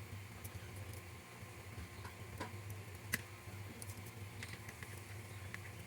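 Scattered small clicks and taps of tiny model parts and tools being handled during scale-model assembly, the sharpest about three seconds in, over a steady low hum.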